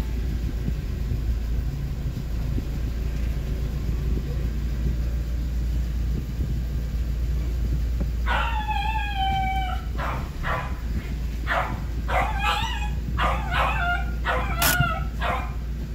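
A car engine runs with a steady low rumble. About eight seconds in, a dog starts whining in drawn-out calls, then breaks into quick repeated yelping barks that continue to the end.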